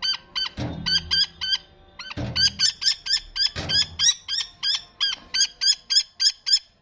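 A captive bird of prey calling over and over: short, shrill, high-pitched notes at about four a second, with a brief pause near two seconds in. Three low thuds come in between the calls.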